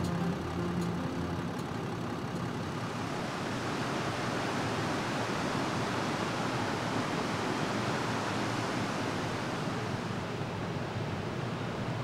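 Steady rush of a shallow mountain stream flowing over a rocky riverbed. The tail of background music fades out in the first couple of seconds.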